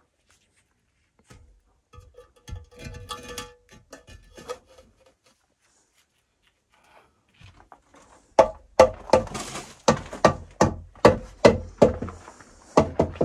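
A rapid, even series of sharp knocks, about two to three a second, starting about eight seconds in, after a few faint sounds and stretches of dead silence.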